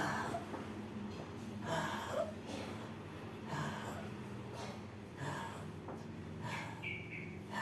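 A person breathing heavily, about five breaths a second and a half to two seconds apart, letting each breath out during abdominal massage.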